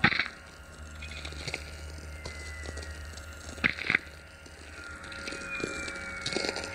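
Very low frequency radio receiver picking up distant lightning over a steady low hum: sharp crackles, a loud one at the start and two close together near four seconds, and thin falling whistle tones, one about two seconds in and a longer one from about five seconds. The crackles and whistles are the radio signals of lightning strikes somewhere on the planet.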